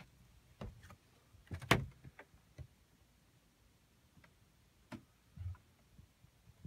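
Quiet small cabin with a few light knocks and clicks as someone moves through the wooden cabin doorway. The sharpest click comes a little under two seconds in, and a low thump comes later.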